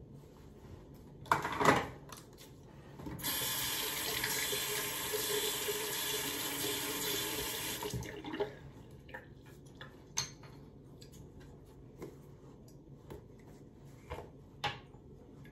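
A short knock about a second and a half in, then a bathroom sink tap running steadily for about five seconds, water splashing into the basin, before it is shut off. A few light clicks follow.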